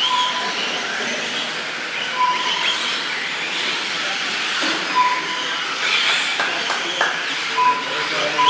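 RC 4x4 short-course trucks racing on an indoor dirt track: a steady hiss and whine of motors and tyres. Five short electronic beeps at one pitch are typical of the lap-timing system marking cars crossing the line.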